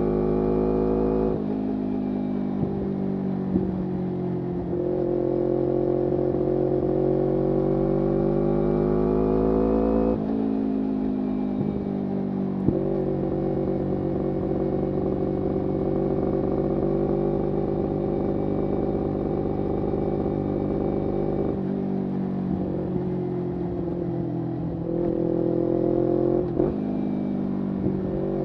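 Kawasaki Ninja 250R's parallel-twin engine through a full Graves racing exhaust, under way. The engine note climbs steadily and then drops sharply, several times over, as if shifting up a gear, and holds a steady pitch for a long stretch in the middle.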